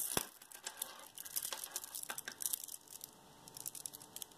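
A long strand of glass pearls being handled, its beads giving irregular light clicks and rattles, with a sharper click just after the start.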